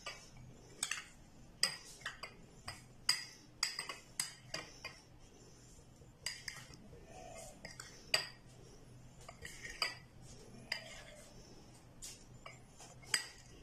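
Metal spoon stirring sticky, syrup-coated watermelon rind pieces in a glass bowl, with irregular sharp clinks as it knocks against the glass.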